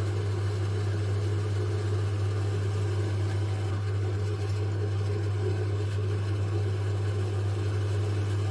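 Steady low electrical hum at an even level throughout, with no clicks or knocks on top.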